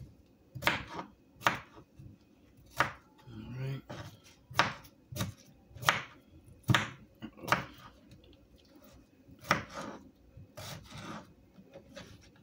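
Kitchen knife chopping a cucumber into chunks on a cutting board: a dozen or so sharp chops, unevenly spaced at about one a second.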